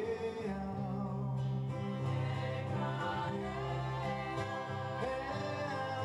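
Two women singing together in held, drawn-out notes over a plucked-string accompaniment.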